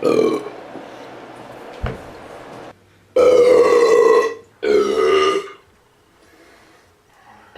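A man belching after drinking beer: a short burp at the start, then two long, loud belches one after the other, each about a second long.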